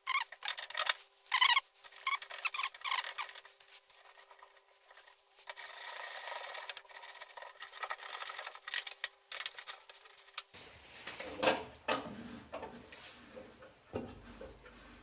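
Hand work on metal axle parts: scattered small clicks and clinks of tools and parts, a few seconds of steady scraping or rubbing, then after an abrupt cut more knocks and handling noises.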